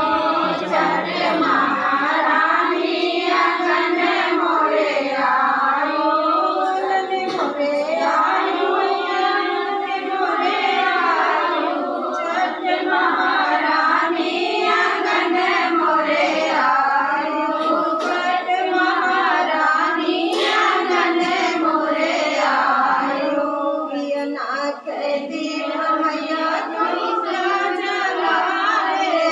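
A group of women singing a devotional folk song together, a Hindi puja geet.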